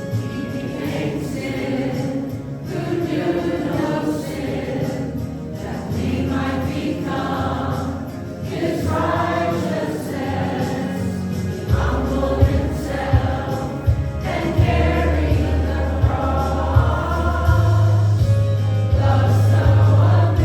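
Music: a group of voices singing a worship song with instrumental accompaniment, a strong bass line joining about halfway through.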